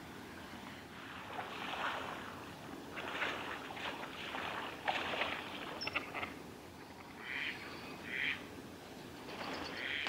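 Several short, irregular animal calls over a steady background noise, with a brief high chirp about six seconds in.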